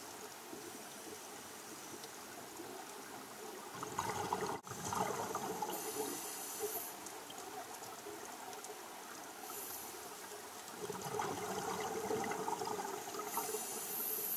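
Underwater recording: a steady wash of water noise with louder surges of bubbling every few seconds, from scuba divers' exhaled breath.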